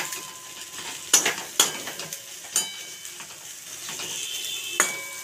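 A spatula stirring and scraping a thick frying fish masala in a kadai, knocking against the pan several times so that it rings briefly, over a steady sizzle.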